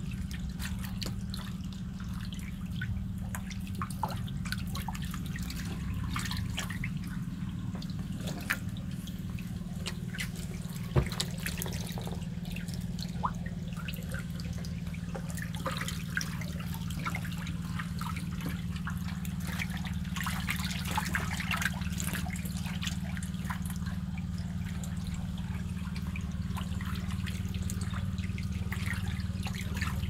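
Water in a small tarp-lined fish pond trickling and dripping with light splashes, over a steady low hum. A few sharp ticks stand out, the loudest about eleven seconds in.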